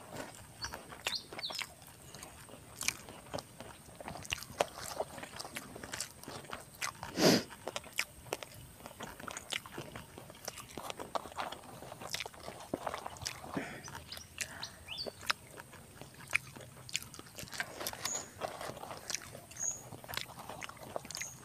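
Close eating sounds: biting and chewing crunchy crackers with rice, short crunches and small clicks scattered throughout, one louder crunch about seven seconds in. A bird chirps briefly a few times near the end.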